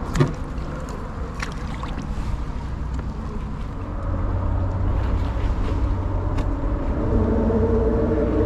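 Steady low rumble of a nearby boat engine, getting louder about four seconds in, with a few faint clicks.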